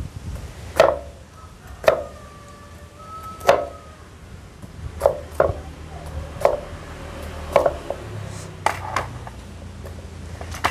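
A large kitchen knife chopping raw bitter gourd on a small wooden cutting board. About ten separate sharp chops come at an uneven pace, roughly one a second.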